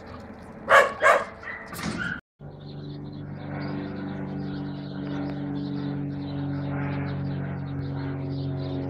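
A dog barks about three times in the first two seconds. After a sudden break, a single-engine high-wing propeller airplane's piston engine runs steadily, a low even drone.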